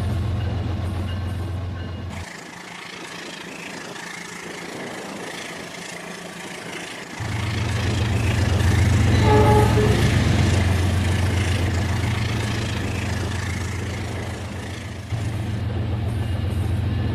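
RailKing model train running on its track with a steady low rumble that drops away for about five seconds early on and then comes back. About nine seconds in there is a short pitched horn-like tone.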